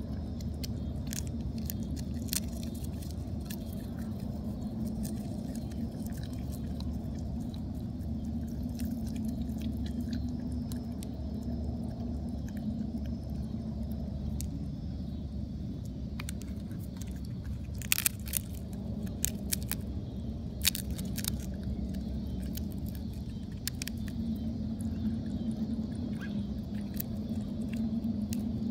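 Groundhog chewing peanuts: scattered sharp crunching clicks, with a louder cluster about eighteen seconds in, over a steady low rumble.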